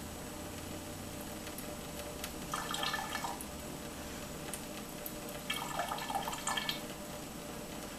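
Thin stream of tap water trickling into a stainless steel sink. About two and a half seconds in, and again about five and a half seconds in, a louder splashy burst lasting about a second as a cat paws at the stream.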